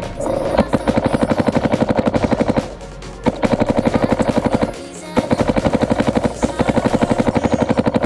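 Paintball marker firing three long strings of rapid shots, about thirteen a second, with short pauses between the strings.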